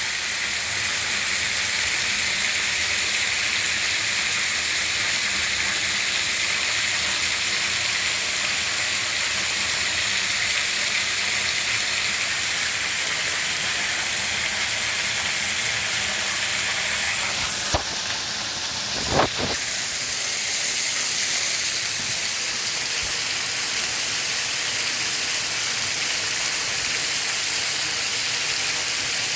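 Waterfall rushing steadily, an even hiss of falling water. Two short knocks sound close together about two-thirds of the way in.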